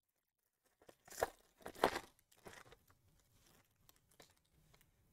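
Foil wrapper of a baseball card pack torn open in two quick rips, about one and two seconds in, then crinkling, with faint rustling of cards after.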